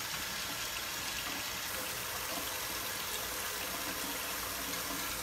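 Kitchen tap running steadily into a sink.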